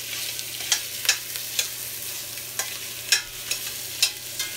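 Lamb chunks sizzling as they brown in hot oil in a stainless steel pot. A string of sharp clicks sounds through it as the pieces are moved around so they don't stick.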